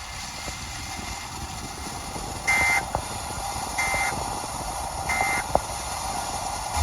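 Emergency Alert System end-of-message data signal: three short, buzzy digital bursts, each about a third of a second long and a little over a second apart, over a steady hiss. The bursts mark the end of the alert broadcast.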